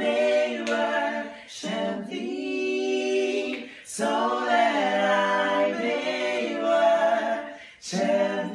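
Three men singing a gospel song a cappella in close harmony. They hold long chords, with short breaks for breath between phrases.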